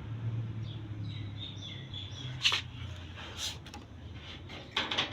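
A few sharp clicks and knocks from handling a gas geyser's control knobs and fittings, over a steady low hum. Faint bird chirps sound in the background.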